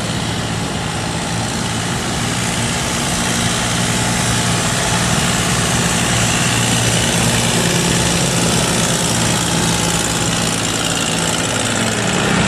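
Boat engines running steadily: a cargo barge's engine and a small boat's long-tail outboard motor. A low, even engine hum with a hiss over it that grows stronger in the middle.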